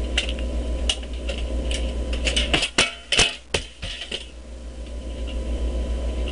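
A run of sharp clicks and knocks about two to four seconds in, over a steady low hum and hiss.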